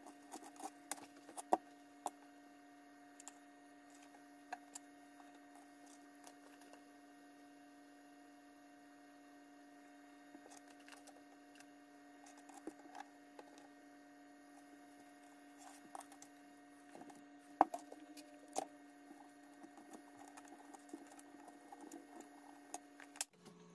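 Quiet kitchen with a steady low hum that stops near the end, and scattered light clicks and taps from hands working a seasoning shaker and handling bacon and corn on a plastic cutting board.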